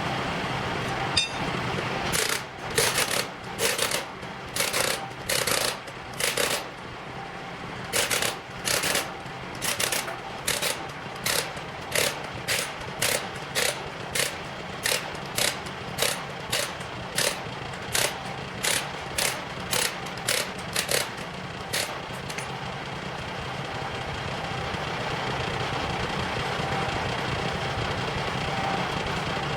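A pneumatic tool, most likely an air impact wrench, fires in about twenty short, loud bursts, one or two a second, while working on a forklift wheel. A steady engine hum runs underneath, and the bursts stop a little past the middle.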